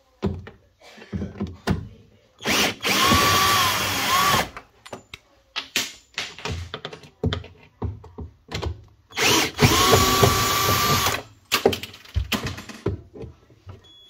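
Cordless drill-driver backing out screws, run twice for about two seconds each with a steady motor whine, with short clicks and knocks of the tool being handled between the runs.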